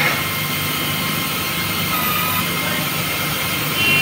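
Air-driven casing cold cutter running steadily on a wellhead casing, its air motor giving a continuous hiss over a low drone.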